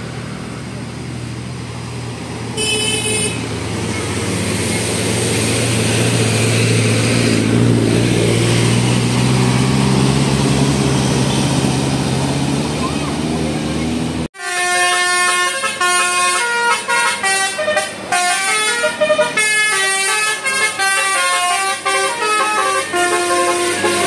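A bus's diesel engine running and growing louder as it pulls in, with a brief high horn toot about three seconds in. After an abrupt cut about two-thirds through, a 'telolet basuri' multi-tone bus horn plays a fast melody of changing notes.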